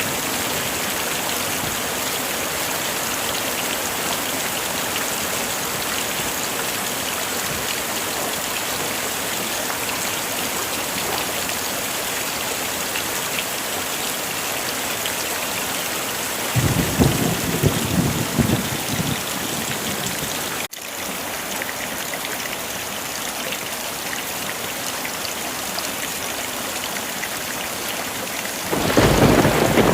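Heavy rain falling steadily, with two low rumbles of thunder: one a little past halfway and another starting just before the end.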